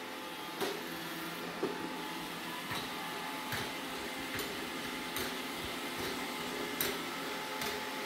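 Roomba robot vacuum running: a steady motor hum with several fixed tones, and a light click roughly once a second.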